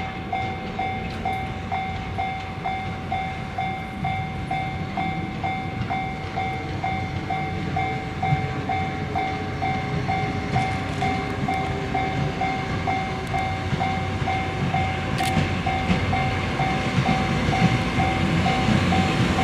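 Japanese level-crossing warning bell ringing in a steady, evenly repeated electronic ding, while the KD60 diesel locomotive hauling a 205-series electric train set approaches, its rumble growing louder over the second half.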